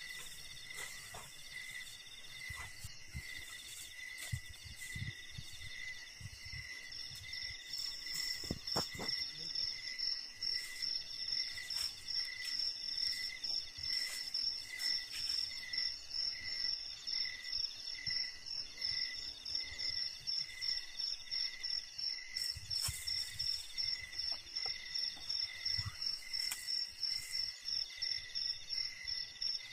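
Forest insects calling: several high, pulsing calls overlap. One ticks about twice a second, another buzzes in long stretches, and a faster, higher pulsing joins about seven seconds in.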